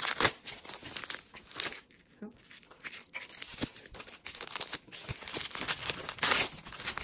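Small plastic wrapper packets from a Miniverse blind capsule being torn open and crinkled by hand: a run of sharp crackles and rips, with the loudest bursts just after the start and again about six seconds in.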